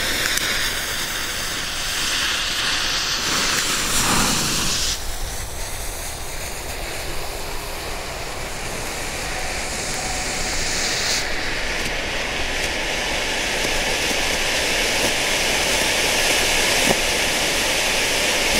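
Two Jorge smoke fountains burning with a steady hiss of escaping smoke; the hiss is harshest in the first five seconds, while the second fountain is catching, then settles into an even rush.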